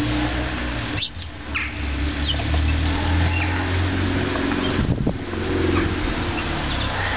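Steady low rumble of road traffic, with a few short high chirps of small birds and brief wing flutters about a second in and near five seconds as a great tit comes and goes at the feeder.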